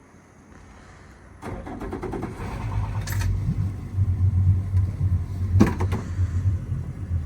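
A boat engine starts about a second and a half in and settles into a steady low idle.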